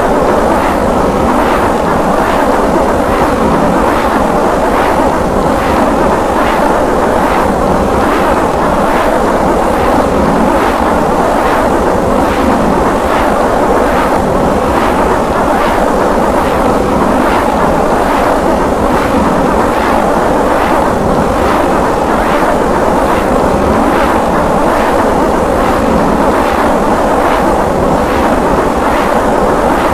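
Emergency Alert System-style alarm, heavily distorted into a loud, steady, harsh roar with a faint regular pulsing.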